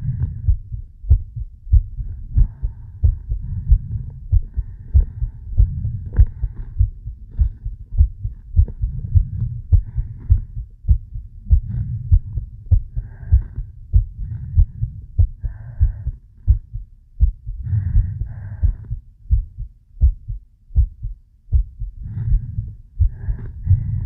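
Human heartbeat recorded close up: a steady run of low, dull thumps. Soft breaths come in and out at intervals over the beat.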